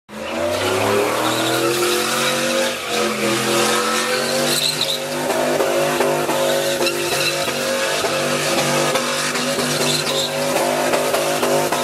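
Chevrolet Silverado SS pickup's LS V8 revving up in the first second, then held near redline with a rapid stutter in its note while the rear tyres spin and screech through a donut.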